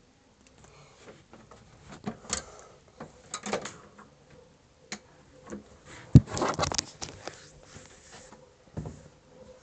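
Footsteps going down a staircase with scattered thumps and rustles from a handheld tablet being carried; the loudest thump comes about six seconds in.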